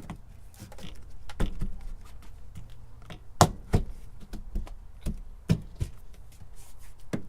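A plastic RV refrigerator vent cover knocking and clicking against the sidewall opening as it is pushed in for a dry fit: a run of irregular sharp knocks, the loudest a close pair about halfway through.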